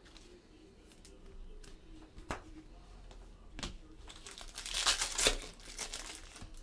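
A couple of light clicks, then a burst of crinkling from a foil trading-card pack wrapper being handled, loudest about five seconds in.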